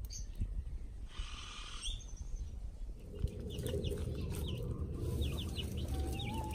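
Backyard hens clucking and calling: a series of short high chirps, then a drawn-out wavering call near the end.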